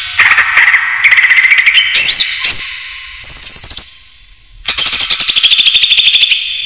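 Cucak ijo (green leafbird) calling: fast rattling trills and a few quick rising whistles in short phrases, with brief pauses between them. The longest and loudest rattle comes in the second half and falls slightly in pitch.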